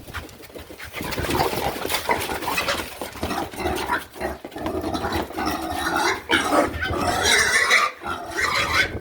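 Pigs grunting and squealing, louder from about a second in.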